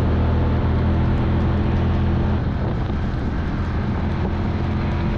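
Side-by-side UTV engine running steadily while driving, with tyre and wind noise on a wet gravel road; the engine note changes about two and a half seconds in.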